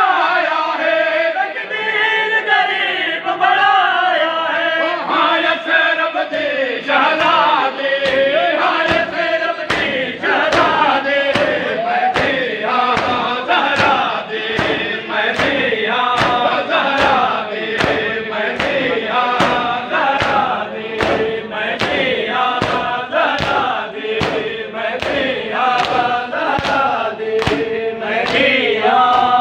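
A group of men chanting a Muharram noha lament in unison, joined several seconds in by a steady rhythm of matam: hands beating on chests, about one and a half strokes a second.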